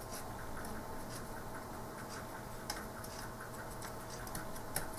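Faint, even ticking, several ticks a second, over a steady low hum.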